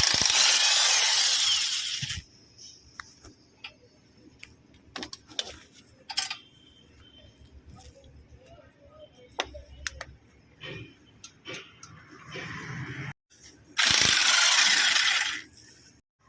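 Mechanic's hand tools clicking, ratcheting and knocking on metal, with scattered sharp clicks. Two loud hissing rushes of about two seconds each come at the start and again about 14 seconds in.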